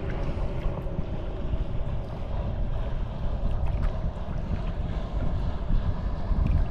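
Wind buffeting the microphone over choppy saltwater, with small waves lapping and splashing close by in light, scattered ticks.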